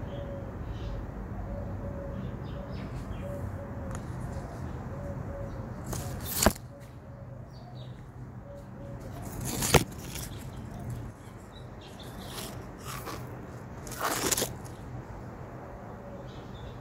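Citron tree leaves and twigs rustling and brushing against a handheld phone as it is pushed in among the foliage, over a steady low rumble. Two sharp clicks, a little after six seconds and near ten seconds, and a longer rustling scrape around fourteen seconds are the loudest sounds.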